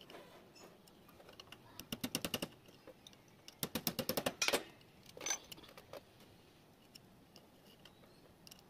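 Three short bursts of rapid metallic clicking, many clicks a second. The clicks come from small steel parts, bolts with roller bearings and a steel plate, being handled and fitted together.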